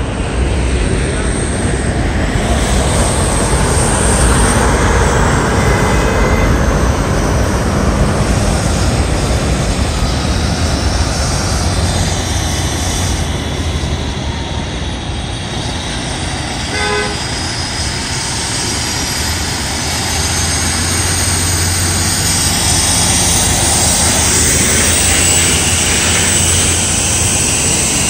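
Heavy-haul diesel tractor-trailer with a multi-axle lowboy trailer passing close by, its engine and tyres running loudly and steadily. There is a short horn toot about halfway through.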